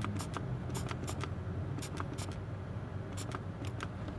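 Hand spray bottle squirting soapy water in several short hisses, at an irregular pace, over a steady low hum. The soapy water is being sprayed on a pressurized cooling system to find a coolant leak.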